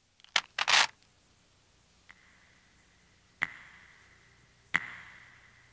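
Plastic clatter and clicks of a small boxy device being handled, about a second long near the start. Then three sharp clicks, each followed by a faint ringing tone that fades away.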